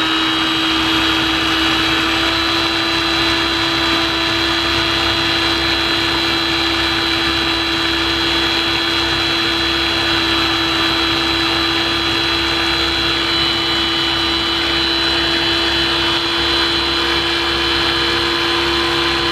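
Philips Avent steamer-blender baby food maker's motor running steadily, its blade pureeing steamed vegetables in the jar, with an even high-pitched whine.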